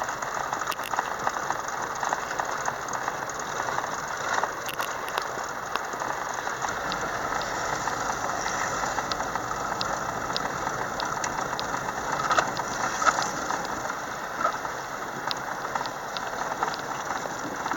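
Steady road noise inside a moving car: a crackly hiss of tyres on wet, slushy pavement, peppered with small clicks.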